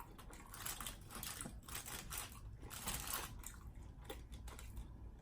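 Faint, irregular chewing and crunching of food: a person eating close to the microphone.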